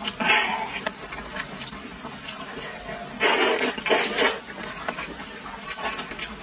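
A person slurping noodles off chopsticks: a short slurp at the start and a longer one about three seconds in, with small clicks in between.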